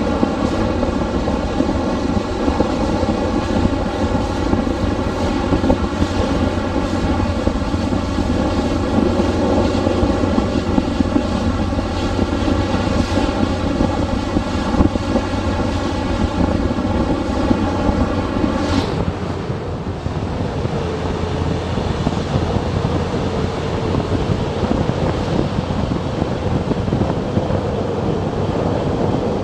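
Motorcycle riding at road speed: a steady mix of engine and wind noise picked up by a bike-mounted camera. About two-thirds of the way through there is a click, and the noise suddenly turns plainer and broader.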